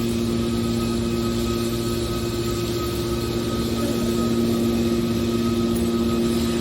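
Stainless steel baler machine running: a steady machine hum at a constant pitch, unchanging throughout.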